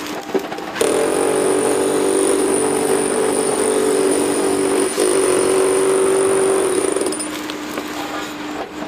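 Electric hammer drill running with its bit driven into a plywood board, starting about a second in, briefly letting off about five seconds in, and stopping near the end. A steady hum sits underneath.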